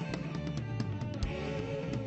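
A band plays an instrumental passage: guitar over a drum kit with steady drum hits, and a held, wavering note in the second half.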